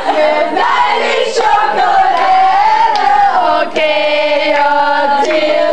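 A group of people singing a birthday song together, unaccompanied, holding a long note near the end.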